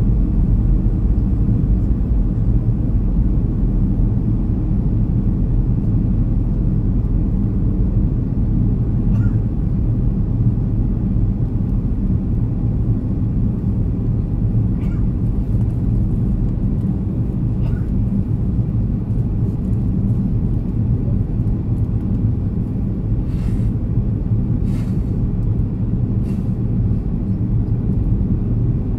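Steady low rumble of a Boeing 737-300 cabin in flight, heard from a window seat over the wing: the CFM56-3 turbofan engines and the rush of airflow over the fuselage during descent.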